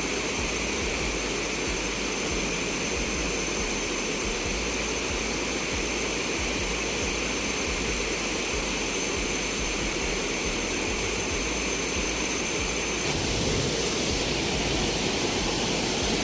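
Steady roar of Thompson Falls, a large waterfall, heard close to its foot. It grows a little louder and brighter near the end. A thin, faint, steady high tone sits above it.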